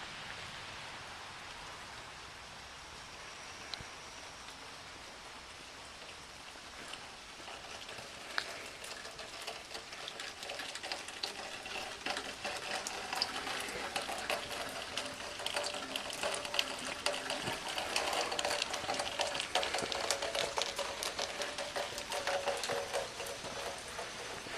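Pressure washer spraying water onto a surface: a steady hiss of spray with dense crackling spatter, growing louder about a third of the way in.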